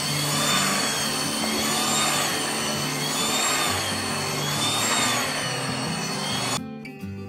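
Electric hand mixer running on spiral dough hooks, kneading stiff donut dough: a steady motor whine whose pitch wavers up and down about every second and a half as the hooks drag through the dough. It cuts off suddenly near the end.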